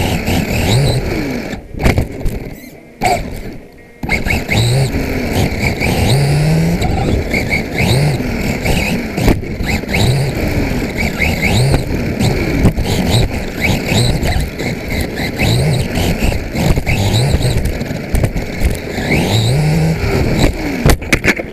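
Carisma GT14B RC buggy's electric motor and drivetrain whining close up from a camera mounted on the car, the pitch rising again and again as it accelerates down the straights, over steady tyre and gear noise with sharp knocks from bumps. The sound drops away for a moment about two seconds in.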